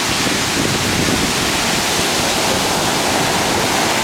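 Surf breaking on a sandy beach: a steady, loud rush of waves with no let-up.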